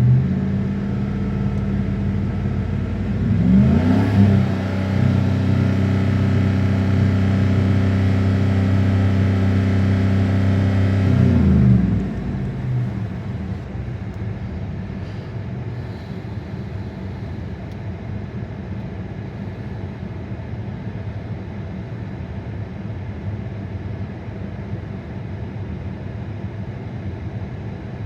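Car engine idling, revved up about four seconds in and held at a steady raised speed for about eight seconds, then dropping back to idle. This is the engine with a cylinder 2 misfire on cold start.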